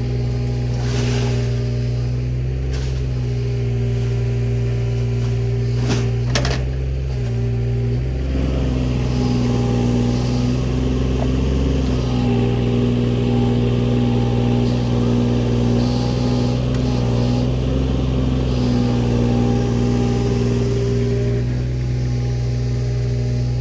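Mini excavator's diesel engine running steadily while it digs and swings bucketfuls of soil, its note shifting slightly in pitch as the arm works. A few sharp knocks, the loudest about six seconds in.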